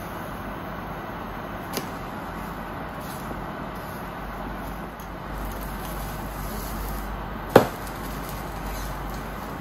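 Egg-soaked bread frying in a pan with a steady sizzle. There is a light tap about two seconds in and one sharp knock on the pan near the end.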